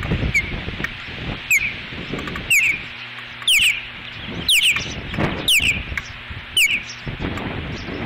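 Ospreys giving their alert call: a short, sharp, falling note, often doubled, repeated about once a second, seven times. Wind buffets the microphone with a rumble underneath.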